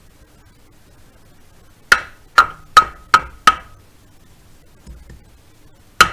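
Finned cast-iron cylinder barrel of an air-cooled VW engine being tapped home over its piston onto the crankcase: five quick, sharp knocks with a short ring after each, then one more near the end.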